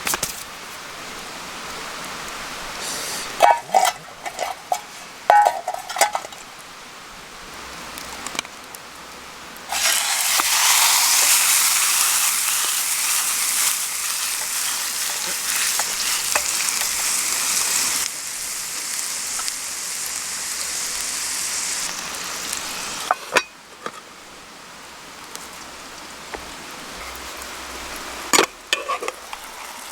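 Metal cookware and utensils clinking a few times. About ten seconds in, food hits a hot oiled pan and starts sizzling loudly, and the sizzle slowly eases off. More clinks follow near the end.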